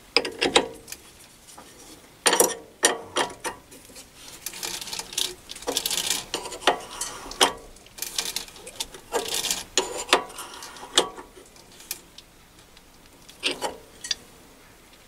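Steel ER32 collet nut being tightened with a spanner on a mini-lathe collet chuck, closing the collet onto a small screw: irregular metallic clicks and short scrapes of steel on steel, coming in several bursts.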